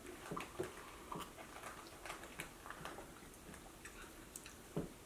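Faint sipping and swallowing of root beer from small plastic sample cups, with scattered light clicks and taps as the cups are handled and set down on the table; one firmer tap near the end.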